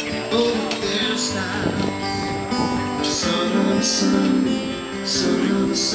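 Background music with a strummed guitar.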